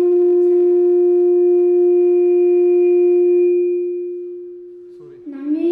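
A boy's voice holding one long, steady sung note that fades away about four seconds in.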